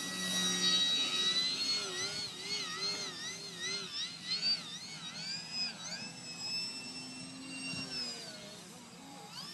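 Radio-controlled SU-31 model airplane's motor and propeller whining in flight, the pitch swinging up and down about twice a second as it manoeuvres, then holding steadier and fading near the end.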